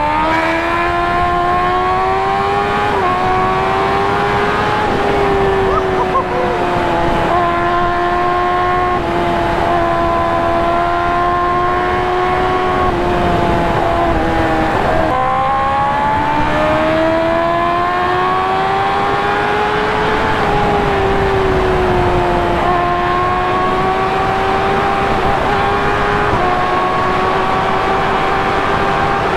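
Kawasaki ZX-10R's inline-four with an aftermarket Akrapovič exhaust, run hard at highway speed. The engine note climbs steadily and drops back sharply at several gear changes, over steady wind rush.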